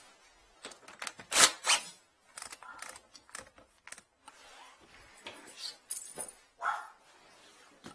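Clicks, clinks and rustling of tools and cables being handled by gloved hands, including a cordless drill and clip leads, with two sharp knocks about a second and a half in.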